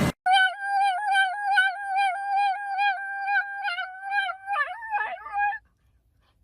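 A dog howling: one long, steady-pitched howl with a quick, regular waver, turning wobbly and breaking up near the end before it stops; a second howl starts right at the end.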